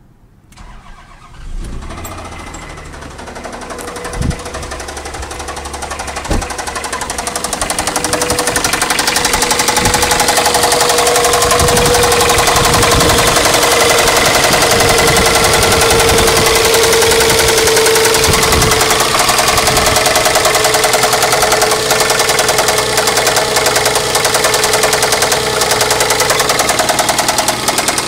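Toyota 3VZ-FE V6 engine running with a fast, steady knock, which the owner takes for spun bearing shells. It grows louder over the first several seconds, then holds steady.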